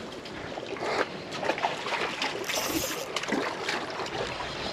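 Water lapping and sloshing around wharf pilings, with scattered small clicks and knocks and a brief hiss about two and a half seconds in.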